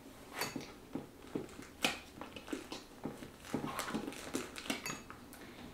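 Hands packing small items into a canvas-and-leather crossbody bag: a string of irregular clicks and taps, with the rustle of the bag, as a plastic earbud case is tucked inside.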